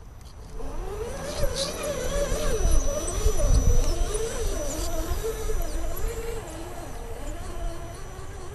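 Axial SCX10 RC rock crawler's electric motor and gears whining, the pitch rising and falling as the throttle is worked. The crawler is loudest, with a low rumble and crunching, as it passes close by about three to four seconds in.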